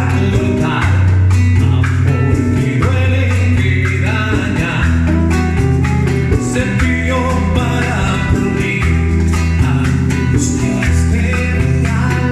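Latin band music with plucked guitar and a strong bass line.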